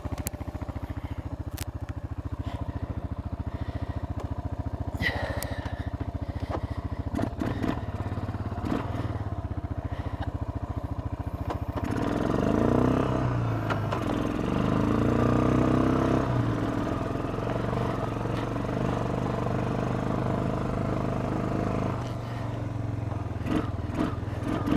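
ATV engine idling smoothly with no ticks or knocks, then revved and driven about twelve seconds in, its pitch rising and falling with the throttle before settling back to a steady run. A few sharp clicks and clatters come before the revving.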